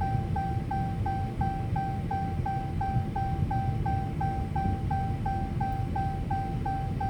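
A short high beep repeating evenly, about three times a second, over a steady low rumble.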